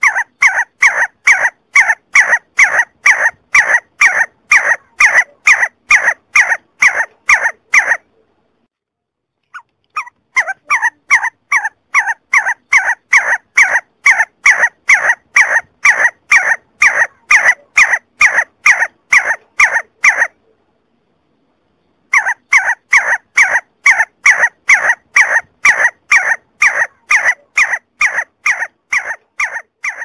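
See-see partridge calling: a fast, even series of whistled notes, about three a second, in three long bouts broken by two short pauses.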